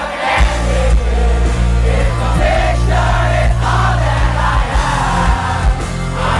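Live pop-punk band playing with sung vocals; the full bass and drums come in loudly about half a second in.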